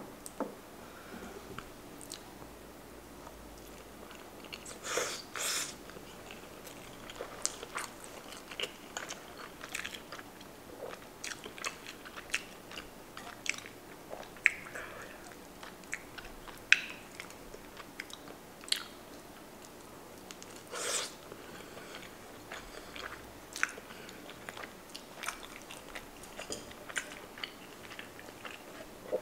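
Close-miked eating of rotisserie chicken: wet chewing and mouth clicks going on throughout, with louder bites about 5 seconds in and again about 21 seconds in.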